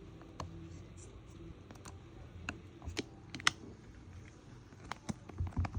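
Irregular light clicks and taps of small hand tools and phone parts during a smartphone repair, about a dozen in all, the sharpest about three and a half seconds in.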